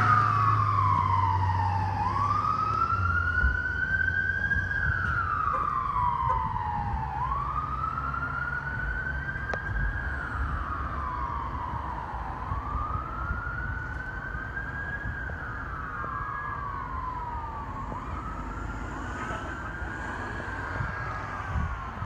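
Fire engine siren on a slow wail, its pitch rising and falling about every five seconds, growing steadily fainter as the truck drives away.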